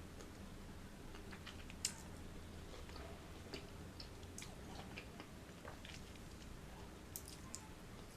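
Close-up chewing of fresh fruit: scattered wet clicks and small crunches from the mouth, the sharpest about two seconds in, over a faint steady low hum.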